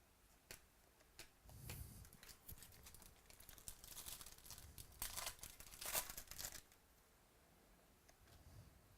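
Foil wrapper of a trading card pack being torn open and crinkled, a run of crackly rustling that is loudest about five to six seconds in, after a few light clicks.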